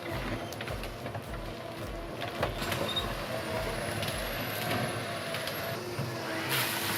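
Heavy machinery running steadily, with scattered sharp knocks and cracks, the loudest about two and a half seconds in, over an even low pulse about twice a second.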